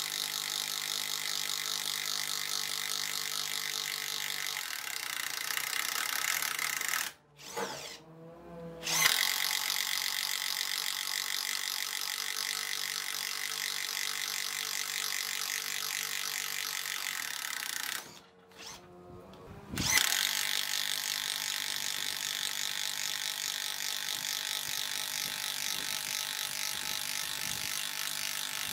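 Bosch GDR 12V-105 cordless impact driver hammering under load as it drives a 20 mm bit into a timber board, a fast, even rattle of impacts. It stops twice, about a quarter and two thirds of the way through, winding down briefly before starting again sharply.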